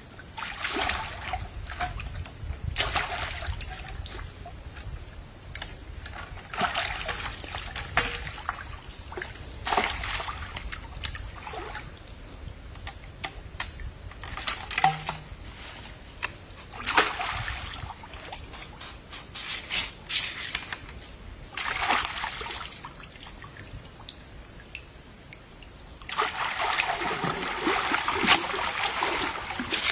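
Water splashing and sloshing in irregular bursts every second or two, turning into steady splashing for the last few seconds.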